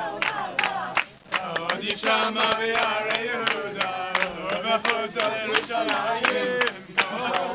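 A crowd singing together with steady rhythmic hand-clapping, about three claps a second; the sound drops briefly about a second in.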